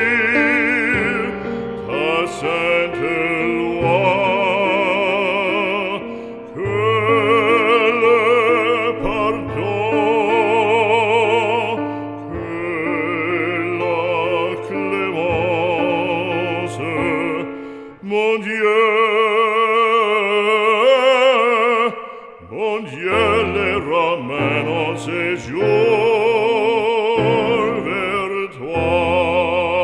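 Background music: a classical operatic voice singing long notes with strong vibrato over instrumental accompaniment, in phrases with brief pauses between them.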